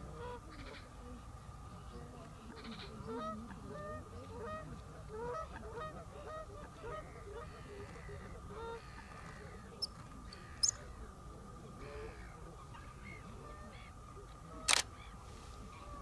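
A flock of water birds calling, many short honking calls overlapping, busiest in the first half. A single sharp click near the end.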